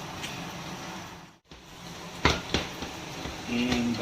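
Kitchen utensil and cookware clatter: a few sharp clinks, as of a metal spoon knocking against a pot or dish, with a brief dropout to near silence partway through.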